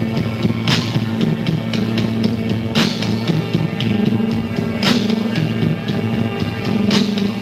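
Rock band playing live in a slow passage with no singing heard: held low notes carry on steadily under the drums, and a cymbal crash rings out about every two seconds.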